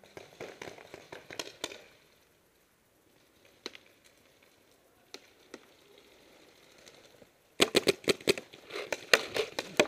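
Planet Eclipse Geo2 paintball marker firing a rapid string of shots, several a second, starting about three quarters of the way in. Before it come scattered faint snaps and rattles.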